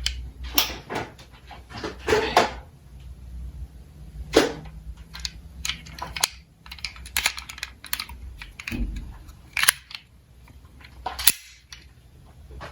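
Diecast toy cars clicking and clattering: sharp, irregular knocks as the little metal cars are handled, set down and bump into each other, some in quick clusters of two or three.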